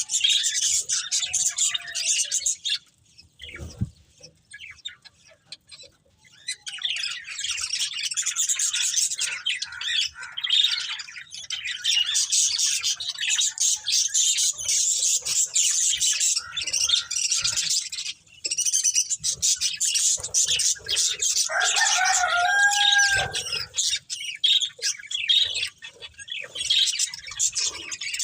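Budgerigars chattering and warbling in a dense stream of rapid high chirps, with a brief lull a few seconds in and a lower, bending call a little past the middle.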